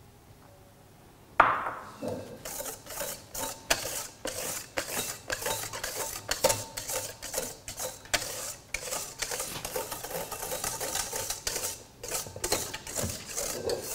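Wire balloon whisk beating a thin egg-and-milk cake batter by hand in a stainless steel mixing bowl, clinking and scraping against the metal in rapid strokes. It starts about a second and a half in.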